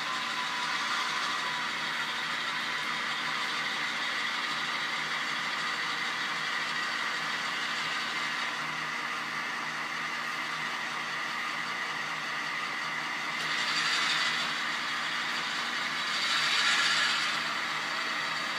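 Model diesel locomotive sound from the locomotives' small speakers, running steadily, with two louder swells of hissing brake squeal near the end.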